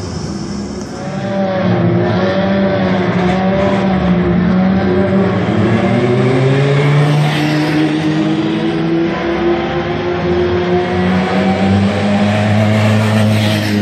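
Formula 3 race car engines running at low revs as the cars roll along the pit lane. The pitch wavers up and down, and the sound grows louder about a second in.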